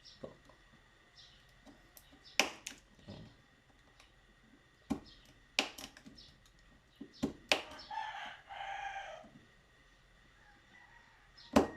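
Sharp clicks and snaps of a cutter knife slicing through a plastic cable clip, about seven of them spread through, the loudest near the end. A rooster crows once about eight seconds in.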